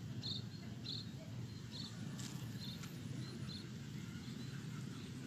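A small animal's short high chirps, repeated about twice a second and thinning out in the second half, over a faint low steady background hum.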